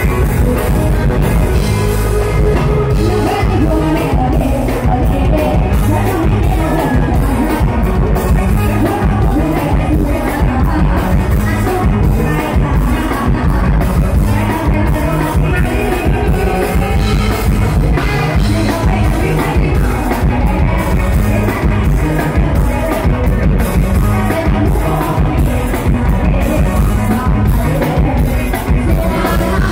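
Loud live Thai luk thung band music with a steady drum beat and a singer.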